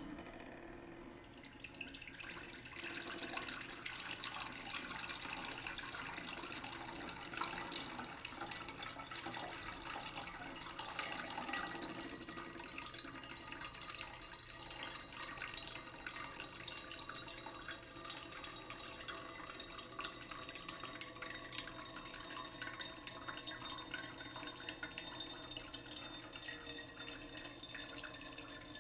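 Tap running slowly into a cooking pot in a sink, the water splashing and trickling steadily as the pot fills.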